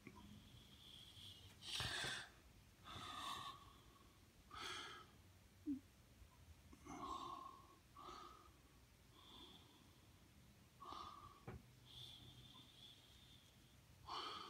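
Faint breathing close to the microphone: short, breathy nasal breaths every second or two, over near silence.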